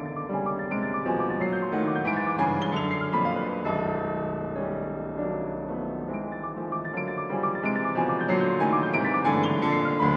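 Grand piano played solo in contemporary classical music: many quick overlapping notes through the middle and upper range, growing busier and higher near the end.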